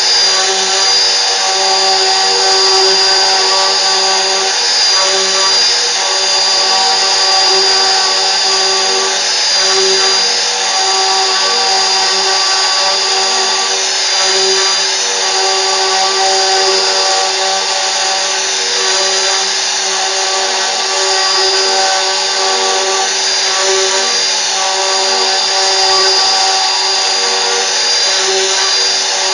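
CNC machine running steadily at a constant level, its spindle giving off a continuous high whine over several lower steady hums.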